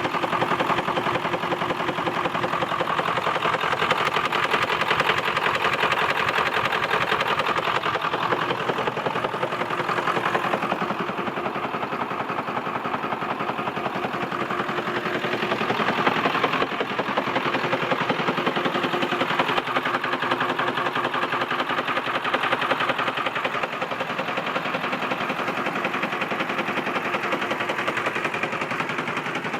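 Ford 7.3 L Powerstroke V8 turbo-diesel running steadily with a rapid, even knocking, which the owner suspects comes from a bad injector.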